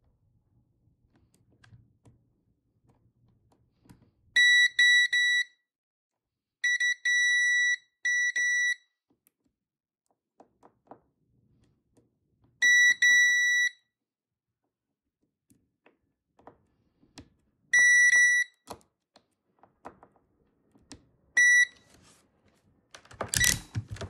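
Digital multimeter's continuity beeper sounding in short, steady single-pitch beeps, in five clusters, some broken into quick repeats. Each beep signals a closed circuit between the probe tips at the keyboard PCB's slide power switch. Faint clicks of the probe tips come between the beeps, and there is a loud rustling thump near the end.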